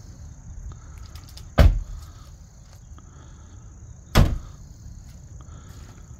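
Doors of a 2017 Corvette Z06 being shut, two solid slams about two and a half seconds apart, over a steady high insect trill.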